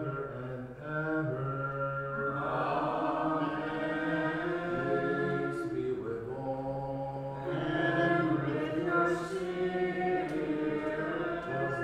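Byzantine-rite liturgical chant sung slowly in long held notes by low voices.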